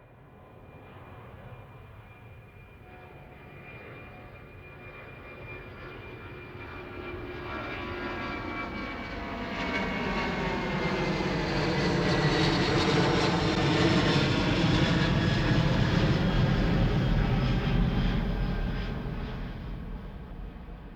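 An airplane flying past: its engine noise swells steadily to a peak a little past the middle and then fades. A high whine drifts down in pitch as it passes.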